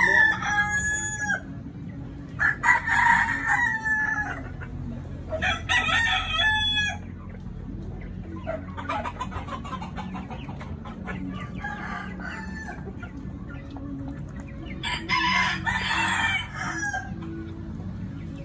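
Rooster crowing over and over: five crows a few seconds apart, the first already under way at the start and the fourth fainter.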